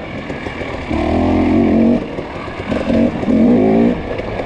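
Off-road racing dirt bike engine revving in surges as the throttle is worked, its pitch climbing in each burst, with louder revs about a second in and again around three seconds.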